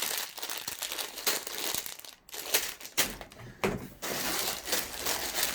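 Plastic bags of Lego pieces crinkling and rustling as they are handled, with a short lull about two seconds in.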